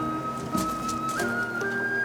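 Korean traditional orchestral music: a high, flute-like wind melody holding long notes and stepping up twice in pitch in the second half, over a lower orchestral accompaniment.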